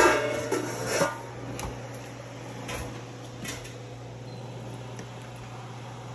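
Stainless steel stockpot lid clanging and ringing against the pot as it is lifted off, followed by a few lighter metal clinks over the next few seconds. A steady low hum runs underneath.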